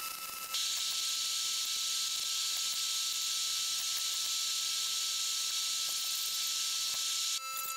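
A steady high hiss that starts abruptly about half a second in and cuts off suddenly near the end.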